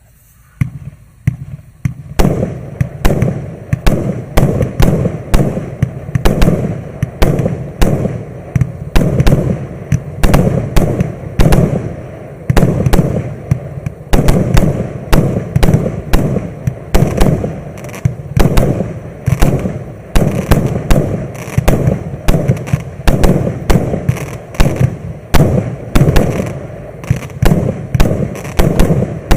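128-shot firework cake (MC138) firing shot after shot in quick succession, each launch followed by its burst. A few faint shots come first, then about two seconds in the shots turn loud and continue unbroken, two to three a second.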